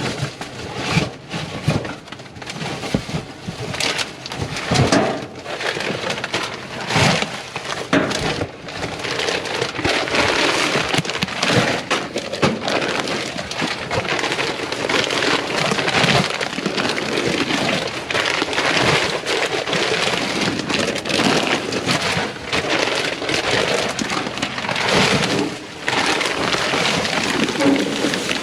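Continuous rustling and crinkling of plastic bags and packaging, with irregular knocks and thuds, as someone rummages through trash inside a packed dumpster.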